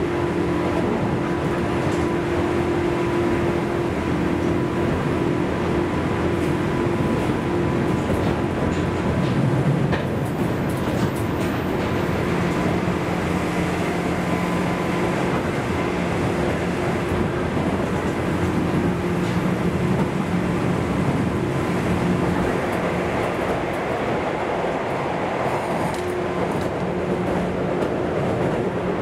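Interior running noise of a JNR 201 series armature-chopper-controlled EMU motor car (Moha 201-172) travelling at speed: a dense, steady roar of wheels and traction equipment with steady humming tones over it.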